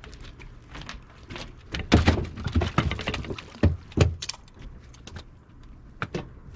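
A series of hard knocks and thumps on a boat's shooting deck as bowfishing gear is handled: a bow being picked up and moved around. The three loudest come about two, three and a half and four seconds in, with lighter clicks after.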